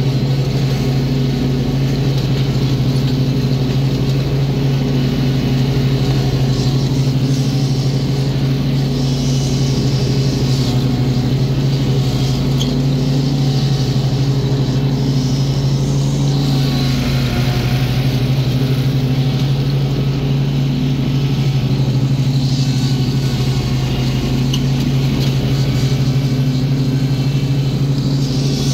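Gravely mower's engine running steadily at mowing speed, a constant low hum with its overtones.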